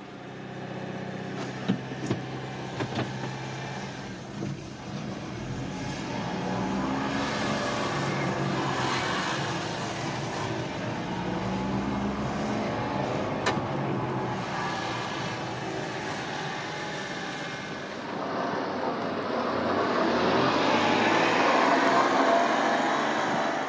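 A 1992 Honda Acty kei truck's small three-cylinder engine running as the truck drives, its note rising and falling with the throttle. Near the end it grows louder and rougher, with more road and exhaust noise.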